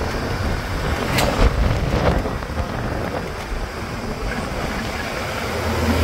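JCB 3DX backhoe loader's diesel engine running under a rough, noisy wash of sound, with two sharp knocks about one and two seconds in. A deep steady hum comes in near the end.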